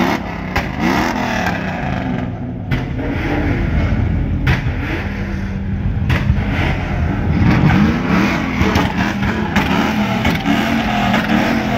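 Car engines revving, their pitch rising and falling again and again over a steady engine note.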